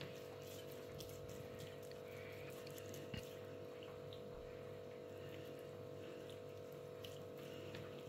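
Faint wet dabbing and smearing of a silicone pastry brush spreading mustard over a raw pork rib slab in a glass bowl, with small soft ticks from the strokes. A steady hum runs underneath, and there is one soft knock about three seconds in.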